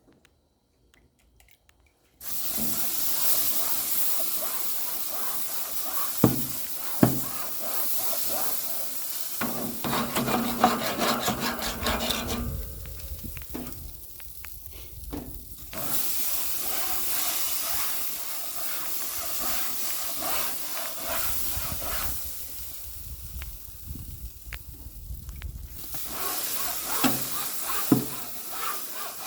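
Cold-water-soaked sponge head of a grill steamer brush scrubbed over hot grill grates, the water flashing to steam with a loud hiss and sizzle that starts about two seconds in and eases off twice along the way. A few sharp knocks of the brush against the grates.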